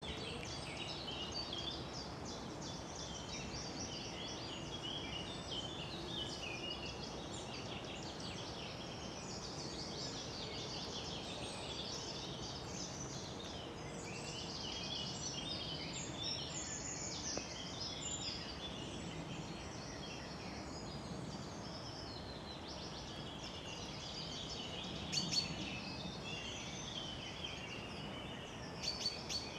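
Many songbirds singing at once, their songs overlapping continuously, over a steady low background noise. A few short knocks come near the end.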